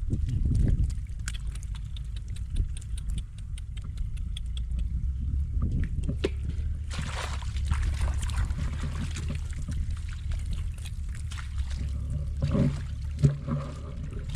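Water sloshing and splashing in a flooded rice field, with a heavier burst of splashing about halfway through, over a steady low rumble.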